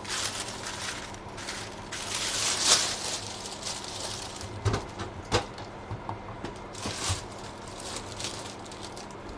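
Parchment paper rustling and crinkling as it is folded over, then a couple of knocks as the lid of a Moulinex Express Grill contact grill is lowered shut.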